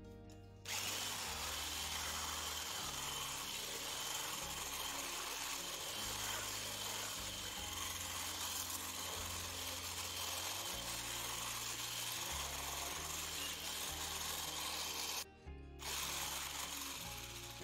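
Electric hand blender with a whisk attachment running steadily as it whips eggs, condensed milk and milk in a stainless steel bowl. It switches on under a second in, stops briefly near the end, and starts again.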